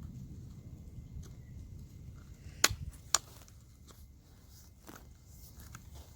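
Sharp clicks and knocks of a screwdriver working at the plastic piece on a vacuum cleaner motor, with two loud clicks about half a second apart near the middle and fainter ticks and handling noise around them.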